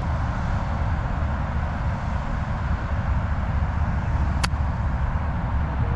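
A golf iron strikes a ball on a short shot from just off the green: one sharp click about four and a half seconds in, over a steady low rumble.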